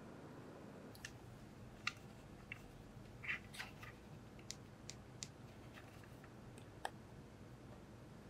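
Scattered light clicks and taps of small plastic items being handled, about a dozen over some six seconds, the sharpest about two seconds in, over faint steady hiss.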